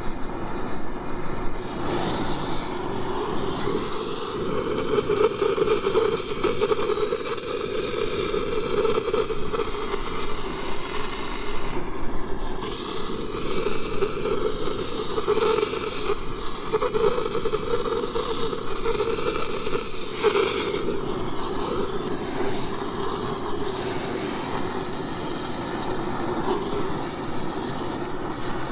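Oxy-acetylene torch burning with a steady hissing rush of gas and flame that wavers slightly in tone.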